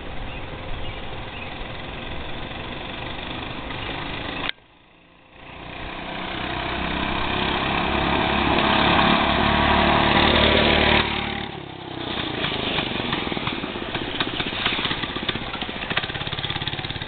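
Doodle Bug minibike's small four-stroke engine, its governor removed and fitted with an aftermarket pipe, running at speed. The engine note grows steadily louder for several seconds as the bike comes closer, then breaks off abruptly about eleven seconds in, and a brief dropout interrupts it about four and a half seconds in.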